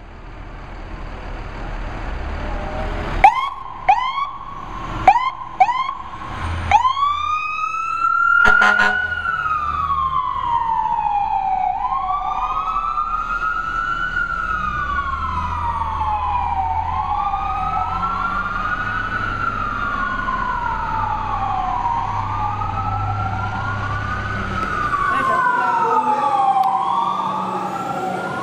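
Fire truck siren: a few sharp, short chirps about three seconds in, then a steady wail that rises and falls every two to three seconds, over the low rumble of the truck's engine.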